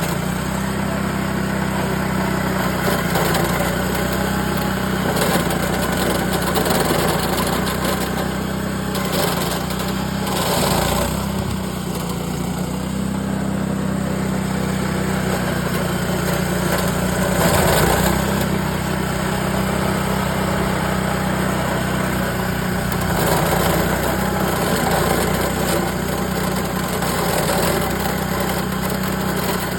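Venus scarifying machine's small engine running steadily as it scarifies a clay court surface, breaking up the top material, with a few brief louder swells along the way.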